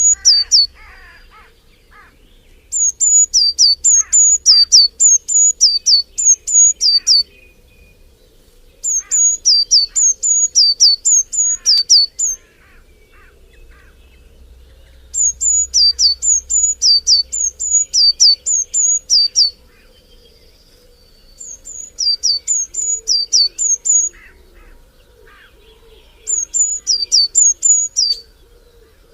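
A songbird singing in repeated bouts of a few seconds, each a fast run of sharp, high, downward-sweeping notes, several a second, with pauses of two to three seconds between bouts. Fainter, lower chirps from other birds sound underneath.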